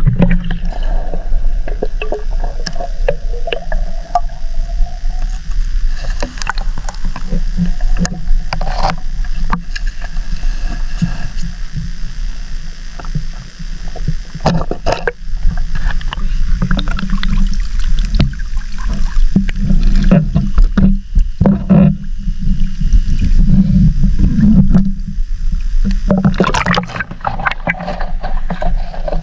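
Muffled underwater noise from a submerged GoPro: a heavy water rumble with many clicks and knocks as the water moves around the camera housing.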